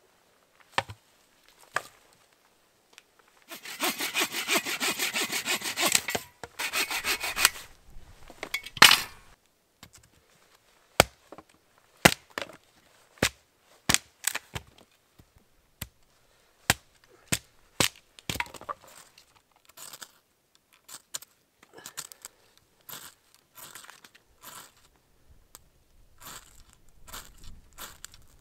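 Wood being sawn by hand with a fast, rhythmic rasp for a few seconds, then a string of sharp knocks about a second apart as a knife is batoned through a piece of firewood. Near the end, softer scattered scrapes and crackles as kindling is readied and lit.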